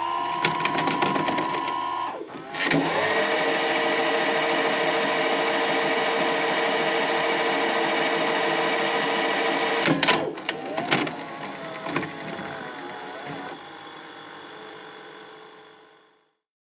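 Rewind sound effects, one after another: a mechanical whir with a steady tone for about two seconds, then a longer, steady, clicking whir that stops abruptly about ten seconds in. A quieter whir with a few wavering pitch slides follows and fades out near the end.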